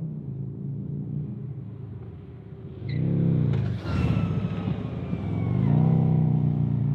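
Harley-Davidson touring motorcycle with Khrome Werks HP Plus slip-on mufflers, its exhaust rumbling deep and low as the engine speed swells and falls about three seconds in and again near the end.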